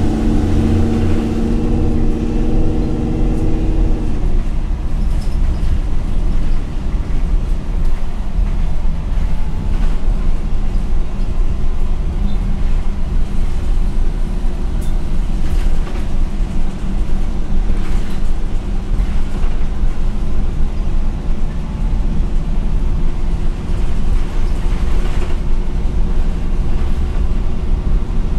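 Cabin noise of a MAN NL243 CNG city bus under way: the natural-gas engine pulls with a steady pitched drone for about the first four seconds, then drops away, leaving a continuous low road rumble with a few light rattles.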